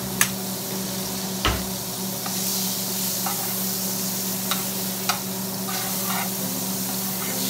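Butter melting and sizzling steadily in a hot nonstick frying pan, with a metal slotted spatula scraping and tapping against the pan a few times as it spreads the butter.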